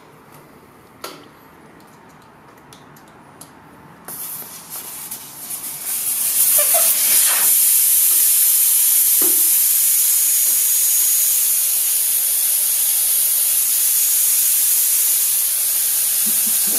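Air hissing out of a car tyre through its valve as the tyre is deflated. The hiss starts faint about four seconds in, after a couple of light clicks, and builds to a loud, steady hiss from about six seconds on.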